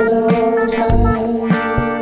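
Funk music: guitar over a low bass line and drums, with held notes and a steady beat.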